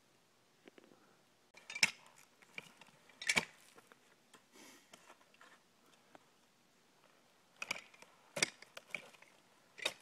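Climbing spur gaffs jabbing into Douglas fir bark as a climber steps up the trunk: short, sharp crunching knocks, two spaced out in the first half, then three closer together near the end.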